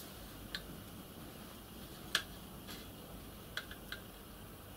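Scattered light metallic clicks, about six of them with the loudest a little past two seconds in, from a pair of mole grips (locking pliers) being adjusted and clamped onto a steel bicycle spoke held in a vise.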